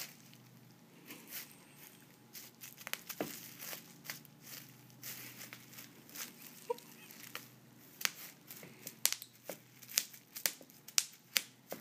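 Plastic bubble wrap crinkling and crackling as a cat moves and paws about on it, in irregular sharp crackles that grow thicker and louder toward the end.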